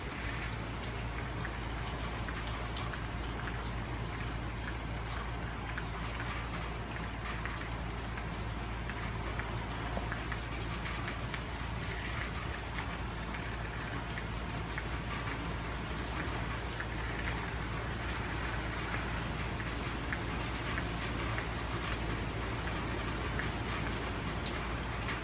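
Hurricane rain falling steadily: a dense, even hiss of drops with many small ticks, over a steady low rumble.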